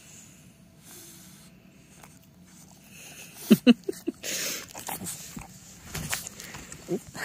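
A French bulldog gives a quick run of short, rising grunts about halfway through as a hand pats his head. Rustling of the blanket and a few soft knocks from handling follow.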